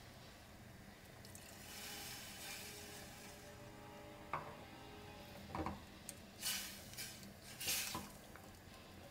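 A pan of stewing lamb and carrots hisses briefly as water is added. A few seconds later a wooden spoon stirs it, with a sharp knock against the stainless steel pot and several scraping, sloshing strokes near the end.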